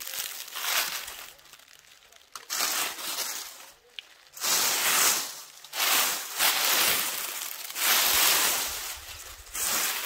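Dry fallen leaves crackling and rustling as hands rummage through them to pick up walnuts, in repeated bouts of a second or two with short pauses between.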